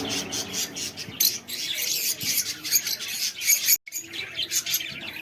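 Many lovebirds chirping and squawking at once in a rapid stream of short, high calls, cut by a brief dropout about two-thirds of the way through.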